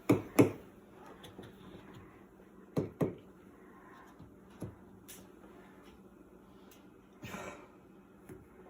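Sharp clicks and knocks of hard parts being handled inside a washing machine: two knocks at the start, two more about three seconds in, a few single clicks after, and a short scrape near the end.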